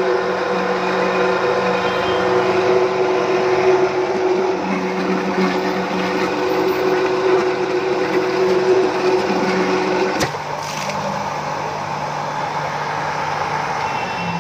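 Three-phase electric induction motor driving an NS80 self-priming centrifugal water pump through a flexible rubber coupling, running steadily with a hum and whine. About ten seconds in there is a click, one of the steady tones drops out and the sound becomes slightly quieter.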